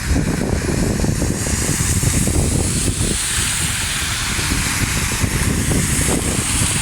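Wind buffeting the microphone: a constant low rumble under a steady hiss.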